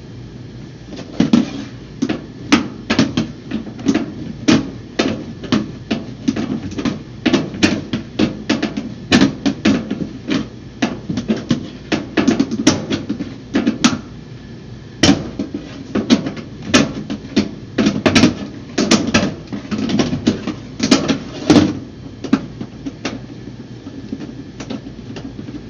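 Irregular metal knocks and clicks, often several a second, as hands work a part loose inside an upright beverage chiller's evaporator compartment.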